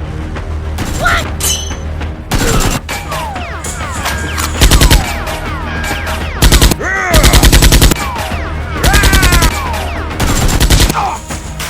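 Several bursts of rapid machine-gun fire, edited-in gunfire sound effects at about a dozen shots a second, with sweeping whistling glides between the bursts, over background music.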